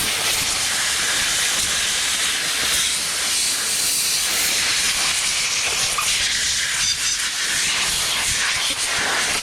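Compressed air blowing dust off a pistol: a steady, loud hiss that starts and stops abruptly.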